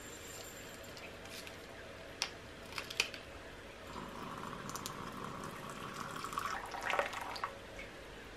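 A few sharp clicks, then hot water poured in a thin stream into a ceramic cup over instant coffee granules for about three seconds, the pitch creeping up as the cup fills. It ends with a few louder splashes.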